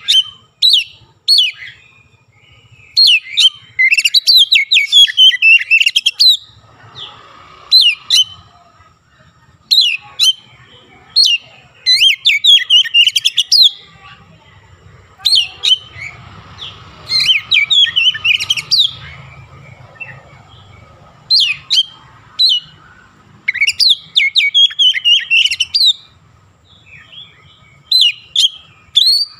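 Oriental magpie-robin singing loudly in repeated bursts of fast, varied whistled and chattering phrases, each one to three seconds long with short pauses between.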